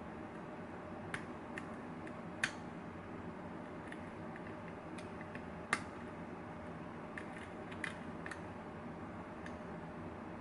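Small, irregular metallic clicks and taps of a lock pick working the pins inside an MX pin-tumbler lock under tension. Two sharper clicks come about two and a half and six seconds in, over a steady low hiss.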